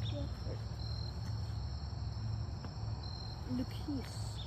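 Crickets chirring steadily, with a short high note repeating about every two seconds.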